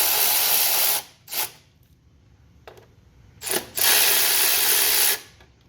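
Milwaukee cordless battery ratchet spinning bolts loose on a small-engine shroud. It runs for about a second, gives a short blip, then after a pause another blip and a second run of just over a second.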